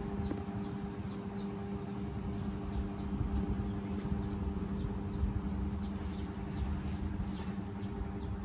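A steady low hum, with short faint chirps of small birds scattered throughout and low rumbling noise beneath.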